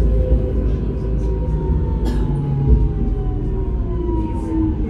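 GT8N tram in motion: steady low rumble of the running car with an electric drive whine whose tones slide slowly down in pitch, as the tram slows.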